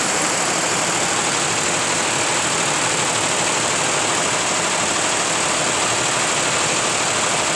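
Multi-head industrial embroidery machine running steadily, its row of needle heads stitching at once in a fast, even mechanical rhythm.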